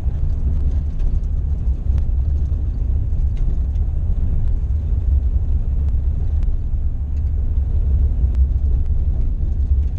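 Cabin noise of a van driving on a gravel road: a steady low rumble of engine and tyres, with a few faint ticks.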